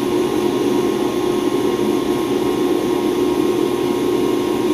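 Bead-blasting cabinet in use: a loud, steady hiss of compressed air and blasting media striking a small steel bracket, with a steady hum underneath.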